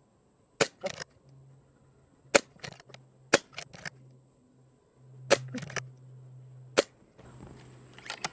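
.22 Brocock Sniper XR Sahara pre-charged pneumatic air rifle firing a string of about five shots one to two seconds apart. Each shot is a sharp crack followed by a couple of lighter clicks.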